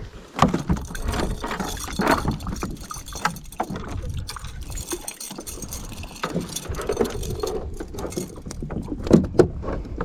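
Irregular knocks, clunks and scrapes of gear being handled in a kayak.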